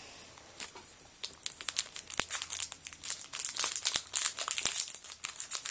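Trading-card pack wrapper crinkling and crackling as it is handled and pulled at to open it, starting about a second in and going on in quick irregular crackles.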